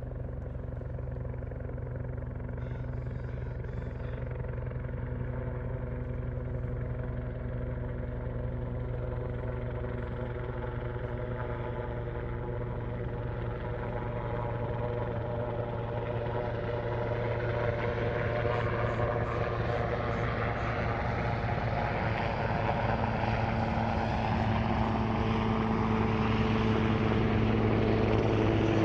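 Sikorsky S-76A helicopter heard at medium distance, its twin turbine engines whining over a steady low rotor beat. The sound grows steadily louder and brighter through the second half.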